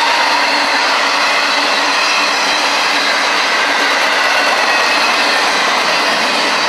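Long freight train rolling past at close range: a steady, loud rumble and rattle of freight-car wheels on the rails, with thin, steady high whining tones over it.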